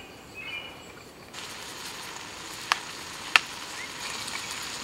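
Chopped steak searing in a hot steel stockpot over charcoal: a steady sizzle that comes in about a second in, with a few sharp pops.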